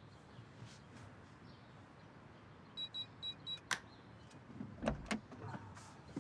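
Four short electronic beeps from a digital safe's keypad as a code is entered, then a sharp click as the lock releases, followed by a few soft knocks as the lid is opened.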